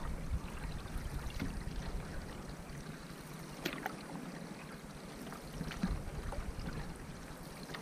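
Water lapping and splashing along a canoe's hull as it moves across a lake, with a few short, sharper splashes.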